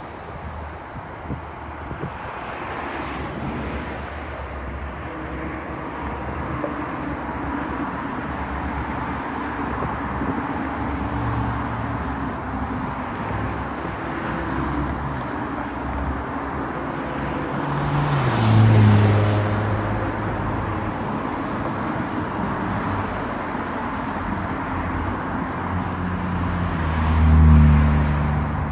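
Road traffic running steadily, with two vehicles passing close by, one about two-thirds of the way through and one near the end, their engine tone dropping as each goes past.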